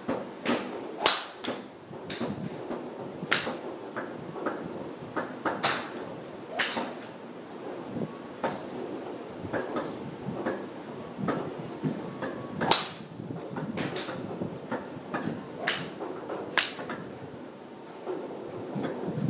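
Sharp cracks of golf clubs striking balls in the driving-range bays, about seven loud ones and many fainter ones at irregular intervals, over a steady low background murmur.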